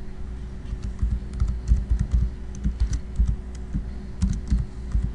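Typing on a computer keyboard: an irregular run of key clicks starting about a second in.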